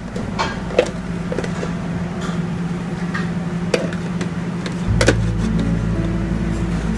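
Steady low hum of commercial kitchen equipment, with a few sharp metallic clinks from a steel sauté pan being handled. A deeper hum joins in about five seconds in.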